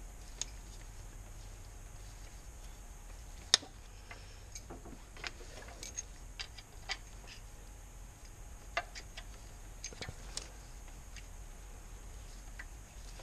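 Sparse, irregular metallic clicks and ticks from a hand tap being twisted into a 2JZ-GE engine's aluminum oil pan, cutting threads for the oil return fitting. One sharp, louder click comes about three and a half seconds in, over a steady low hum.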